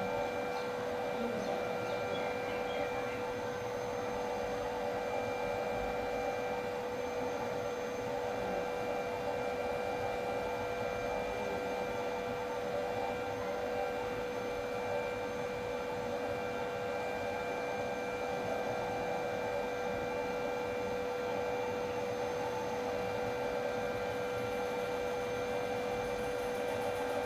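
Small electric blower running steadily: a constant motor hum and whine over a rush of air, feeding air into a bucket of glowing charcoal briquettes.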